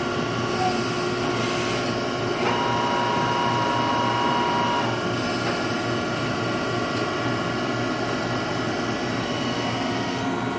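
Okuma Millac vertical machining center spiral milling 4340 heat-treated alloy steel on a 4-axis rotary table, without coolant: steady spindle and cutting noise, with a thin whine that comes in about two and a half seconds in and stops about five seconds in.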